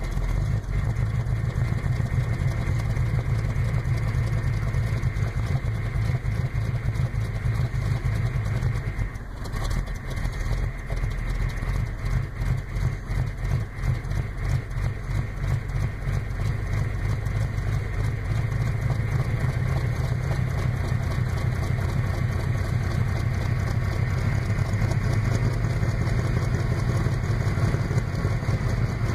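1984 Chevrolet Blazer's engine idling steadily from a cold start, heard at the tailpipe. The level dips briefly about nine seconds in.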